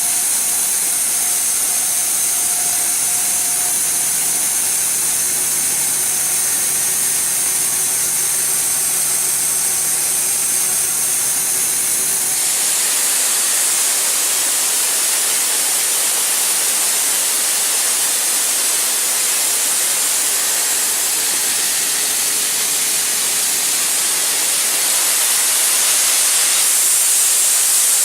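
Diesel-driven portable screw air compressor running under load, with a loud, steady hiss. About twelve seconds in, the lower running tones drop away and the hiss carries on alone.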